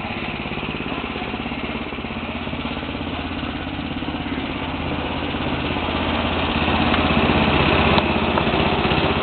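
Snowblower's small engine running steadily, growing louder about two-thirds of the way through.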